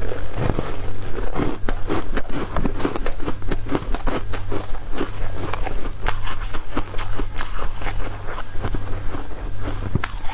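Close-miked biting and chewing of a soft, jelly-like food: an irregular run of small clicks and smacks, over a steady low hum.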